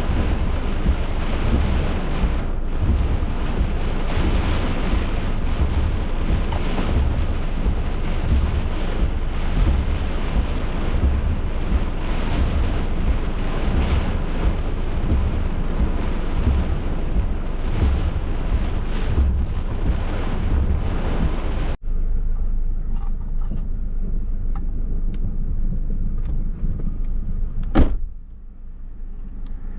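Severe thunderstorm wind and heavy rain buffeting the microphone, with a deep rumble throughout. About 22 seconds in it cuts off abruptly to a quieter low rumble with scattered light ticks and one sharp knock near the end.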